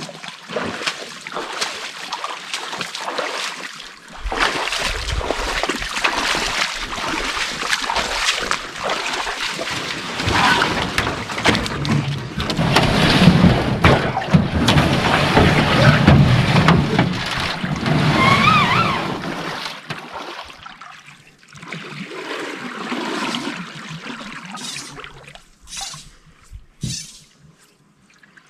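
Water splashing and sloshing, loud and continuous for about the first twenty seconds, then quieter and more broken.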